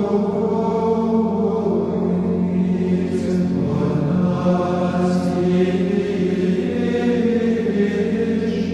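Background music: slow chanted singing, perhaps a choir, with long held notes over a steady drone.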